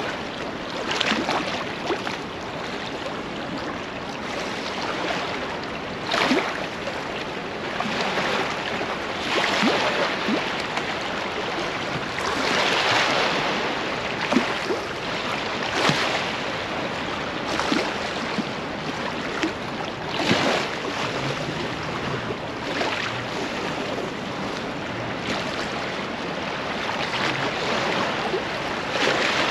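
River in flood rushing past and washing against its bank: an even rush of water that swells and eases in irregular surges.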